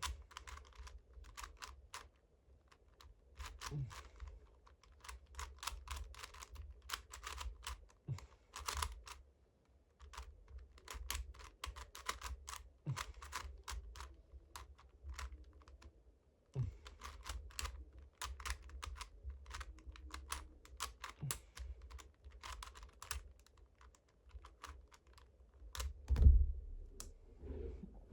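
Rapid plastic clicking and clacking of a 50th anniversary edition Rubik's Cube being turned fast during a speed solve, in flurries of turns broken by short pauses. A louder thump comes near the end.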